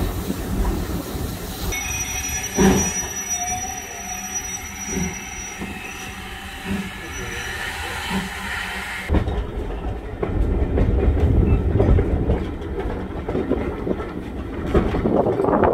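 A passenger train running slowly into a station, heard from the carriage: a rumbling run with a few knocks from the wheels and a thin, steady high squeal. About nine seconds in the sound changes abruptly to a heavy low buffeting, typical of wind on the microphone.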